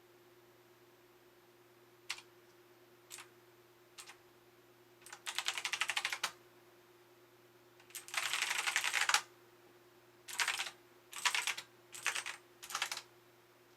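RiZUM G-FACTOR Z10 mechanical keyboard being typed on. First come three single keystrokes about a second apart, then rapid runs of clacking keys about a second long, and several shorter quick flurries near the end.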